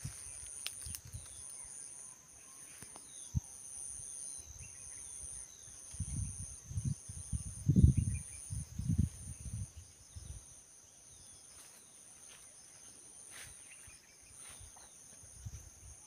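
Insects calling steadily in a high pitch, with a second, higher insect call in regular pulses and a few faint bird chirps. About six seconds in, a run of low thuds for some four seconds is the loudest sound.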